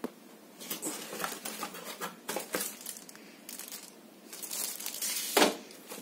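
Cardboard box being opened and a plastic-bagged remote control handled: irregular crinkling and rustling of cardboard and plastic wrap, with a sharp knock about five and a half seconds in.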